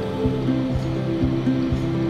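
Background music: an instrumental stretch of a song with a steady beat and a repeating bass line.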